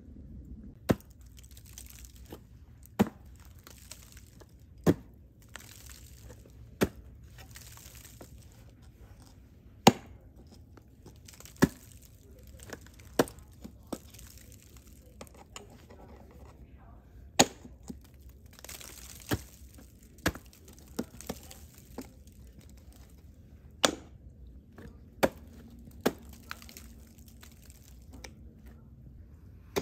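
Steel crampon front points and ice-tool picks striking thin slab ice: about fifteen sharp chops, one every one to two seconds, with softer scraping and crunching of ice between.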